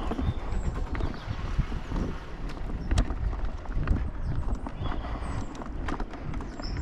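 Irregular knocks and clacks over a steady low rumble, the loudest knock about three seconds in.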